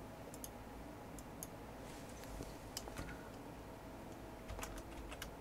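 Faint, scattered clicks of a computer mouse and keyboard, a few at a time and unevenly spaced, over a low steady room hum.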